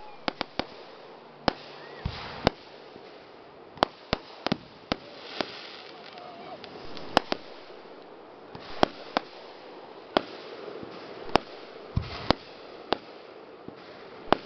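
Aerial fireworks shells bursting: a long string of sharp bangs at irregular intervals, sometimes two or three close together, over a steady background hiss.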